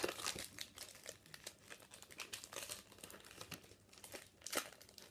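Shiny foil wrapper of a trading-card pack crinkling and crackling as it is handled and torn open by hand: a dense run of sharp crackles, loudest at the start and again about four and a half seconds in.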